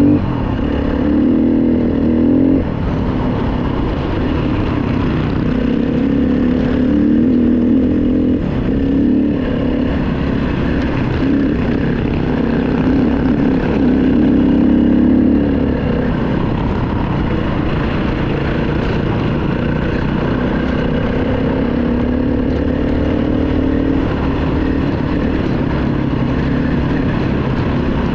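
KTM 350 EXC-F's single-cylinder four-stroke engine running under way, its revs rising and falling with several surges, the longest about halfway through.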